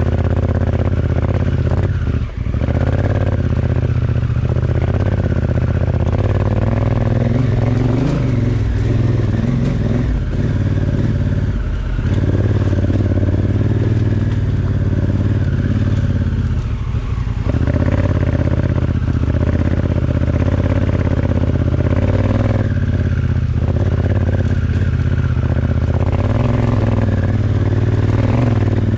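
Honda Africa Twin's parallel-twin engine running under way, its pitch and level rising and falling with the throttle, and dropping off briefly a few times as the rider backs off.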